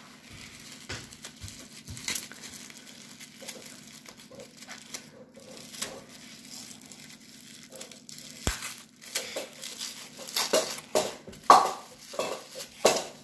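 Tissue paper crinkling as hands unwrap a small wrapped item, soft and sparse at first, then louder and busier over the last few seconds as bubble wrap comes into view. A single sharp click about eight and a half seconds in.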